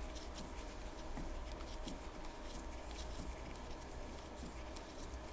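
Faint, irregular small clicks and scratches of a tool turning the B-tension screw on a SRAM X9 rear derailleur, over a low steady hum.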